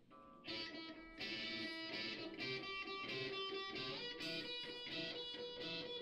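Electric guitars strumming chords as a live rock band starts a song. The guitars come in about half a second in and get louder about a second in, then keep a steady strummed rhythm.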